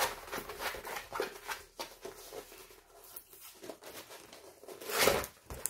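Clear plastic sleeve rustling and crinkling as a rolled diamond-painting canvas is turned round and unrolled, with a louder rustle about five seconds in.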